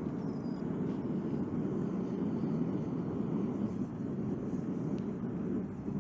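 Lit blacksmith's forge running with a steady low rushing noise, which stops abruptly at the end.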